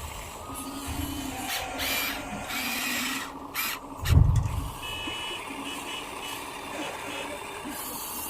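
Remote-control truck's sound module sounding reversing beeps in a repeating on-off pattern, with a loud low thump about four seconds in.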